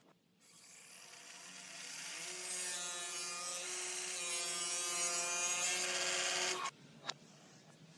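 A power tool working wood, with a steady motor tone under a rough cutting or rubbing noise, building up over a couple of seconds and then cutting off abruptly near the end, followed by a single click.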